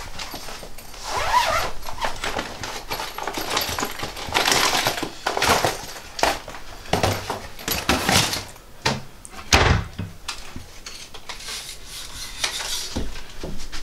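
Handling noise from a camera tripod being carried and set up: irregular rustling, clicks and clatter, with one heavier knock about two-thirds of the way through.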